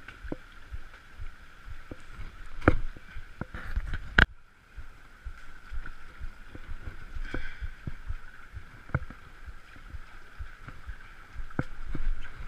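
People wading through a shallow rocky river: water splashing and sloshing around their legs, with scattered knocks of feet and gear on stones. The loudest knocks come about two and a half and four seconds in. A steady high drone runs behind.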